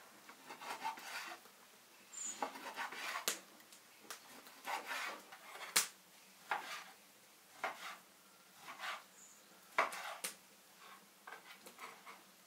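Kitchen handling sounds: a string of short rubbing and scraping strokes on wood and dishes, broken by a few sharp clicks, the sharpest about six seconds in and about ten seconds in.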